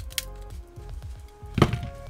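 Background music, over a sharp click near the start and a louder knock about one and a half seconds in from 18650 cells and battery pack parts being handled while the packs are torn down.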